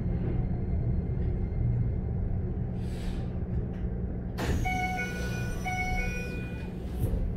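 Keikyu 1000 series train standing at a platform, heard from inside the car: a short hiss of air about three seconds in. Then the passenger doors open about four and a half seconds in with a sudden rush of noise and a two-tone door chime that sounds twice, over a steady low hum of the car's equipment.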